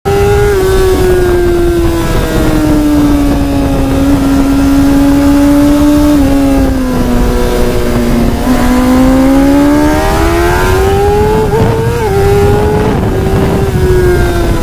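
Sport motorcycle engine heard from onboard, running hard at high revs, around 11,000 to 12,000 rpm. Its note sinks slowly through the first half, climbs again about two-thirds of the way in as the bike drives out of a corner, then wavers and eases near the end, over a steady rush of wind noise.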